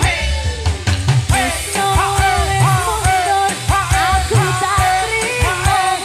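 Live dangdut koplo band music, with drums, bass and keyboard under a steady beat and a woman singing the melody, her voice coming in about a second in.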